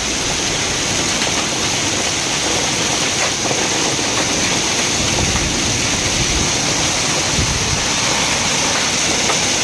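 Hailstorm: hailstones and heavy rain falling on a paved road and the ground around it, a steady dense hiss.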